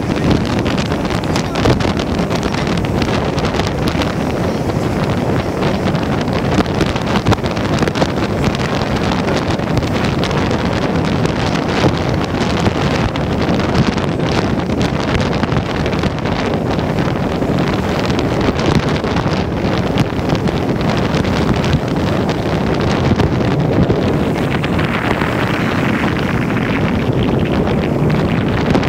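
Strong wind buffeting the microphone over the steady running noise of a train crossing a railway bridge over the sea.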